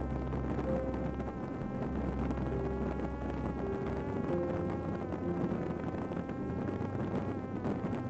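Electric motor and pusher propeller of a Parrot Disco fixed-wing drone whining steadily in cruise flight, a buzzing drone whose pitch wavers slightly.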